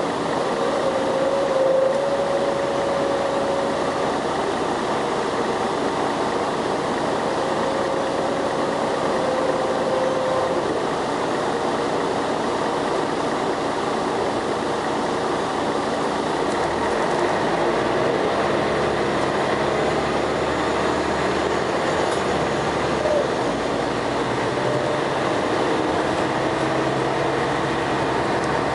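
Scania L113CRL bus's diesel engine and ZF automatic gearbox heard from inside the saloon while the bus is under way: a steady drive with a thin gearbox whine that comes and goes. The engine note changes about two-thirds of the way through.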